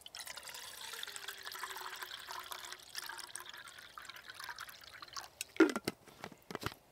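Water being poured for about five seconds, its splashing carrying a faint tone that slides down and then levels off, followed by a sharp knock and a few clicks near the end.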